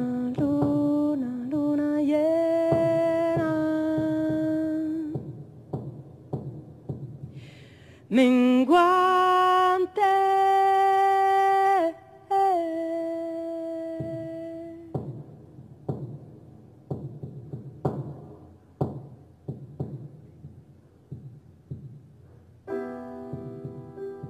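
A woman singing long, held wordless notes over a sparse, rhythmic instrumental accompaniment, in three phrases with short breaks between them. After the last phrase, about two thirds of the way in, the voice stops and the accompaniment plays on alone. Fuller sustained chords come in near the end.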